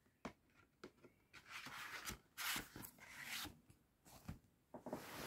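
Faint scraping and rubbing of a plastic DVD case sliding into its cardboard slipcover, in a few short strokes with light clicks of handling.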